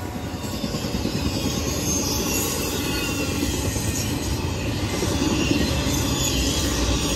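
Double-stack intermodal well cars of a freight train rolling past: a steady rumble of steel wheels on rail, with thin high wheel squeals over it. It grows louder over the first second or two, then holds steady.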